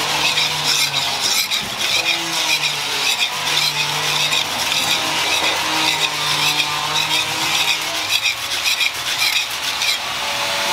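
A steel blade being ground back and forth on a sandstone sharpening stone: a steady gritty scraping made of quick, repeated strokes.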